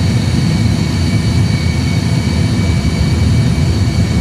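Airbus A320 flight simulator's engine and runway-roll sound during the takeoff run at takeoff thrust: a steady low rumble with a thin, steady high whine above it.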